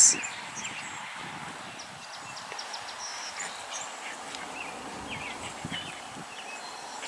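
Quiet outdoor background hiss with faint, scattered high-pitched chirps or squeaks.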